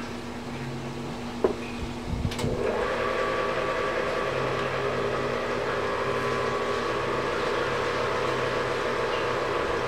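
Non-self-priming brewing pump running with a steady hum, with a click and a metal knock at about one and a half and two and a half seconds. Then a louder steady rush sets in as wort starts flowing through the hose into a steel keg fermenter.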